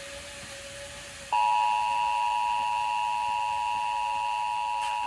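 Emergency Alert System two-tone attention signal, a loud steady dual-pitched tone that comes on abruptly about a second in and announces an emergency alert message. Before it there is only faint broadcast hiss.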